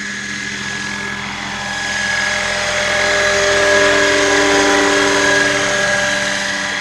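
Large radio-controlled scale model helicopter, a black Bell 222 in Airwolf livery, flying low past: a steady whine of its drive and rotor with several held tones, growing louder toward the middle as it comes closest and easing off near the end.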